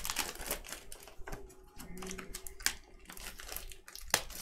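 Trading cards being handled and flipped through by hand: a run of light, irregular clicks and crinkles of card stock.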